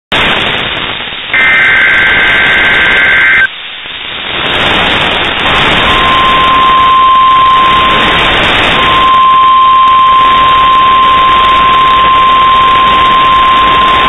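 NOAA Weather Radio broadcast under heavy static hiss. About a second in comes a two-second burst of the SAME digital alert header tones. From about six seconds in, the long steady weather-radio warning alarm tone sounds, broken once briefly, which signals that an emergency alert message follows.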